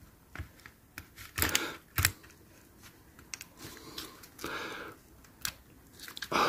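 Plastic body shell and chassis of a Hornby OO gauge Bulleid Pacific locomotive being worked together by hand: irregular sharp clicks and scrapes as the lugs are lined up, the two loudest about a second and a half and two seconds in.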